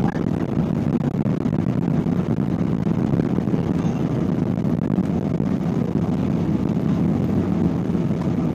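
Steady cabin noise of an airliner moving along the ground after touchdown: engine and rolling noise, a dense rumble heavy in the low range.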